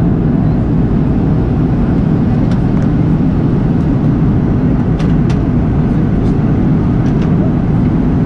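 Steady, loud Airbus A330-200 cabin noise in flight: an even rumble of engine and airflow, with a few faint clicks.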